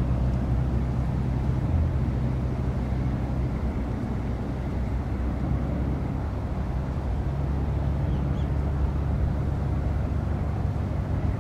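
Steady low drone of a passing limestone carrier's engine, with an even hiss over it.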